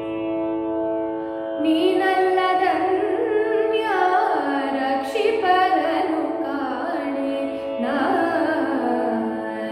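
A woman singing a Kannada devotional bhajan in Carnatic style over a steady drone. Her voice comes in about a second and a half in, with gliding, ornamented melodic lines.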